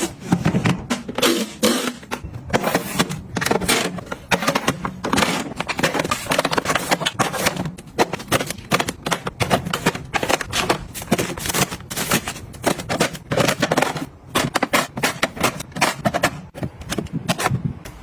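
Rapid, irregular clicking and clattering of household items being handled, knocked together and set down, many small hard knocks a second.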